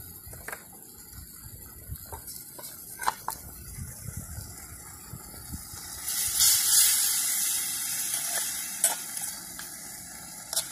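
Pot of broth simmering over a wood fire, with a few light clicks and taps. About six seconds in, a loud hissing sizzle rises as a whole tilapia is lowered into the hot liquid, then slowly dies down.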